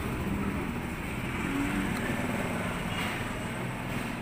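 Steady low rumble of road traffic, with a vehicle engine humming.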